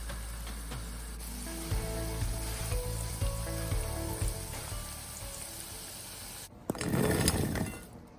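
Food sizzling as it fries in hot oil, with a louder burst of sizzling for about a second near the end.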